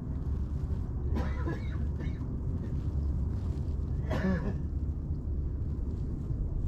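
Wind buffeting the microphone as a steady low rumble, with two brief faint voice sounds about a second and four seconds in.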